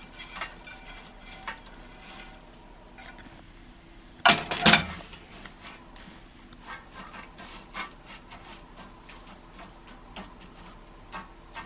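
Dried baby sardines being stirred in a pan with a utensil: a run of light clicks and scrapes, with a loud clatter about four seconds in.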